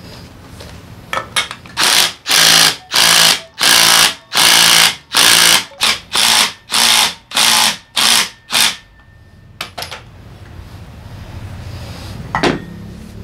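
Cordless impact wrench run in about a dozen short bursts, each about half a second, on the centre nut of a Honda PCX 125 clutch shoe assembly. A single knock follows near the end.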